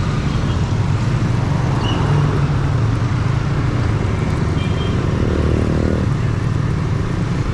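Yamaha MT-15's 155 cc single-cylinder engine running through its stock exhaust while riding, heard onboard with steady road and wind noise. A higher-pitched tone joins for about a second around five seconds in.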